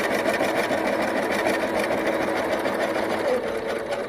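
Electric Singer sewing machine running steadily under the foot pedal, stitching a straight stitch through fabric in an even, fast rhythm.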